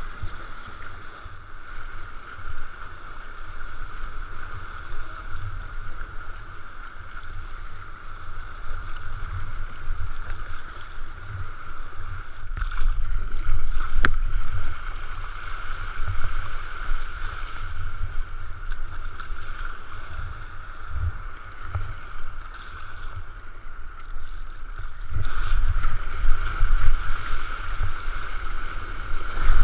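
Sea water splashing and sloshing around a sea kayak as it is paddled through small surf, with wind rumbling on the microphone. A single sharp click about fourteen seconds in.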